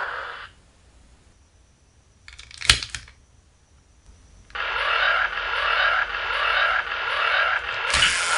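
Electronic sound effects from a DX Hurricaneger transformation toy, played through its small built-in speaker. They stop shortly after the start. A sharp mechanical click of the toy comes about three seconds in, and the sound effects start up again about halfway through, with another click near the end.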